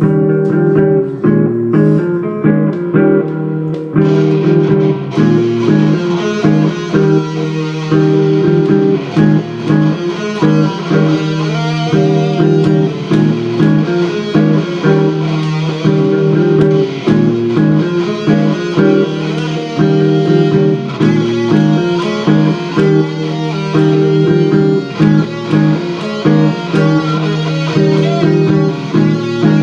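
Gibson Les Paul electric guitar playing over a repeating looped rhythm part from a Boss loop pedal. A brighter lead layer comes in about four seconds in.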